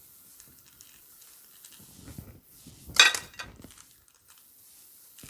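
Kitchen handling noises, with one brief loud clatter about three seconds in and quieter knocks around it.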